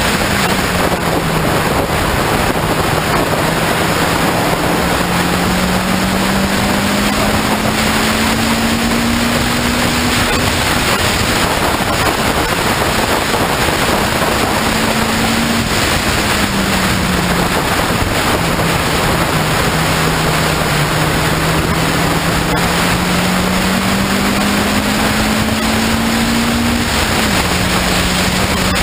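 Morgan 4/4 race car's four-cylinder engine at racing speed, heard from the open cockpit. Its note climbs steadily and drops back sharply several times, under heavy wind rush on the microphone.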